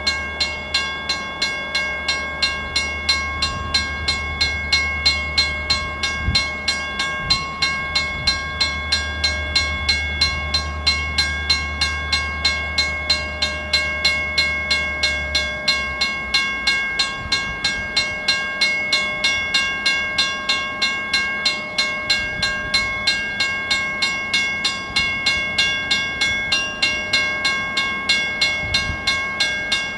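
Grade-crossing warning bell ringing steadily, a little over two strokes a second, with diesel locomotives approaching the crossing. A low steady hum lies under it and stops about sixteen seconds in.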